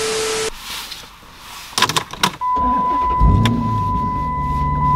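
A TV-static transition effect, a short steady tone over hiss, in the first half second. Then a few clicks, and the Chrysler 300's 5.7 Hemi V8 cranks and starts about three seconds in and settles into a steady idle, with a steady high tone running over it.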